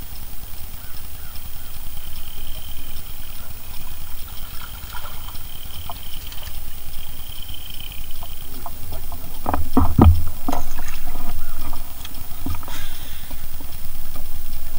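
A small hooked bass splashing at the surface as it is reeled in to the side of the boat, with a burst of splashes and knocks about ten seconds in, over a steady low rumble.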